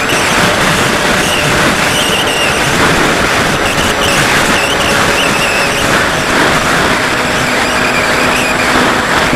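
Wind rushing over the microphone of a camera riding on a Bixler 2 foam model plane in low, fast flight, mixed with the whine of its electric pusher motor and propeller, which wavers slightly in pitch.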